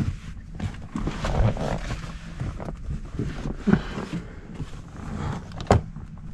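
Handling noise of a person shifting about in a car's driver's seat: scattered rustles and bumps, with one sharp knock a little before the end.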